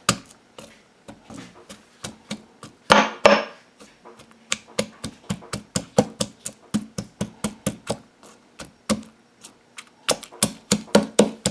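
Marble pestle pounding garlic cloves and a wiri wiri pepper in a marble mortar: a run of sharp knocks, sparse at first, then about three to four a second, with a short pause about eight seconds in.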